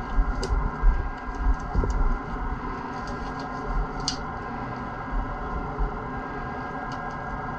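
A disposable latex glove being pulled onto a hand, with a few short snaps and rustles, the sharpest about four seconds in, over a steady mechanical hum. Low handling thumps come in the first two seconds.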